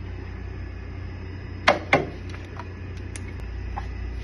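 Two sharp knocks a quarter of a second apart, then a few light ticks, over a steady low hum.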